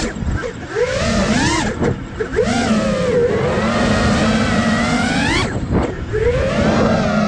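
Nazgul Evoque 5 FPV quadcopter's brushless motors and propellers whining, the pitch climbing sharply and dropping away several times as the throttle is punched and cut, over a rush of air noise.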